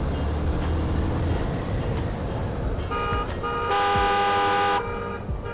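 Low road and engine rumble from a motorcycle ride. About three seconds in, a vehicle horn sounds, with one steady blast of about a second as its loudest part, before it fades.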